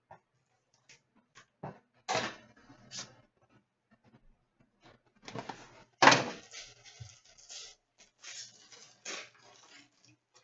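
Hands handling a trading-card box, its wrapping and the cards: brief rustles and crinkles with scattered clicks and taps, and one sharp knock about six seconds in, the loudest sound.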